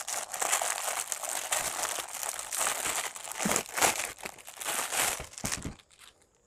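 Clear plastic packaging crinkling and rustling as a multi-socket extension board is pulled out of it by hand. The crinkling stops near the end, leaving a few faint ticks.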